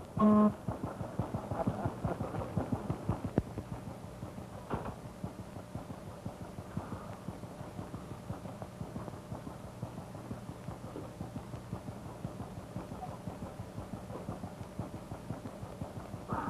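A fishing boat's engine running with a steady, rapid rhythmic chug over a low hum. A man's singing ends about half a second in.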